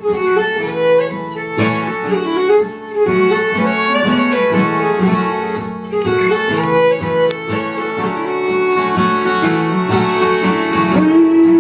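Instrumental break of an acoustic string band between sung verses: a gliding fiddle melody over guitar and bass accompaniment.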